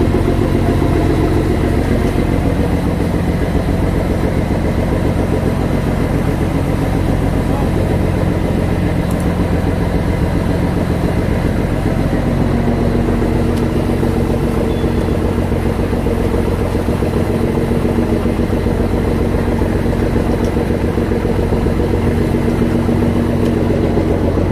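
Fishing boat's engine running steadily, a continuous low drone with an even rhythmic beat.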